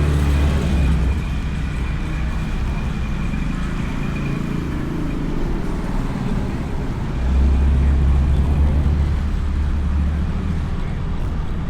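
Motorbike riding through traffic, heard from a microphone inside the rider's helmet: a steady engine and road rumble with a deep swell near the start and again from about seven seconds in. A faint high whine runs through the first few seconds.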